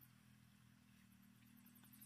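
Near silence: faint outdoor ambience with a faint steady low hum and a faint, fast, high-pitched pulsing in the background.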